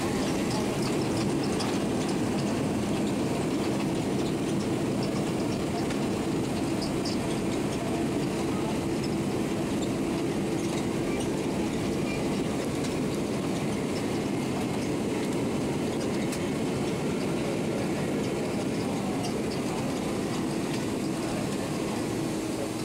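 Steady cabin rumble of a Boeing 767-300ER rolling along the runway just after landing, heard inside the cabin beside the engine, with a faint steady hum. It eases slightly near the end as the jet slows.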